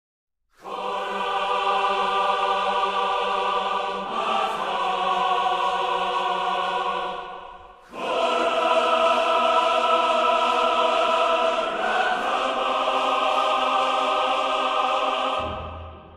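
Choral music: a choir holding long sustained chords that change about every four seconds, with a short break just before the middle. It fades out near the end, leaving a low steady hum.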